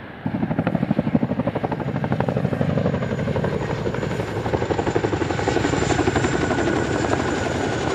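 Tandem-rotor CH-47 Chinook helicopter in flight: a rapid, steady rotor chop with a thin high turbine whine above it, starting abruptly just after the start.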